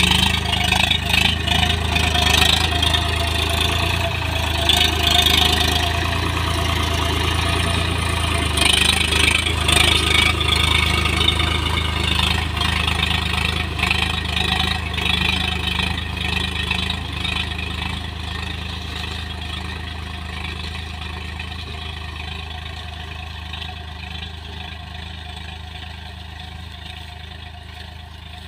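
Swaraj 744 FE tractor's three-cylinder diesel engine working steadily under load while pulling a reversible plough through soil. It grows fainter over the last ten seconds as the tractor moves away.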